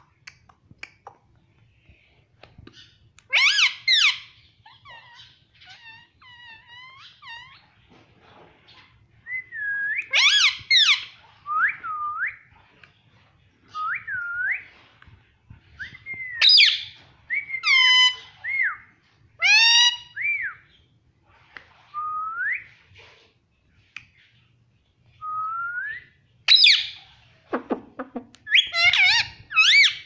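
Indian ringneck parakeet whistling and calling: a string of short whistles, many sliding upward, coming every second or two.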